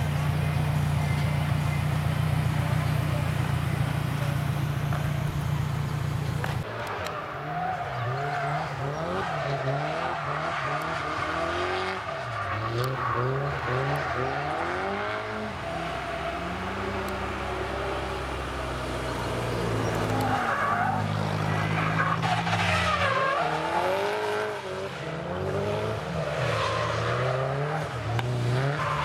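A car engine idles steadily close by. About six and a half seconds in it cuts to drift cars on the track: engines revving up and down over and over as they slide through the corners, with tyres squealing.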